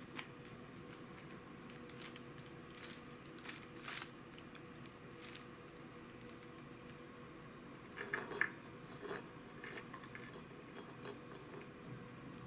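A cat nosing and pawing at a steel bowl of shelled green peas and a plastic bag of pea pods, making faint scattered clicks and rustles, with a louder cluster about eight seconds in.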